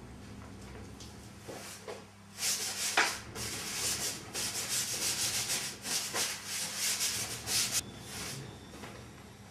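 Fabric of a Roman blind being scrubbed in a quick run of rubbing strokes during dry cleaning, starting about two seconds in and stopping a couple of seconds before the end.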